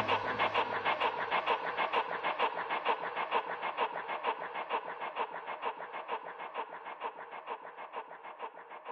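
Electronic music fading out: a fast, evenly repeating pulse, about five or six a second, growing steadily quieter until it cuts off.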